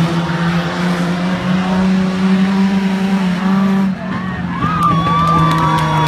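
Speedway sedan engines running hard around a dirt oval, a steady drone from several cars. A high-pitched squeal joins in about five seconds in.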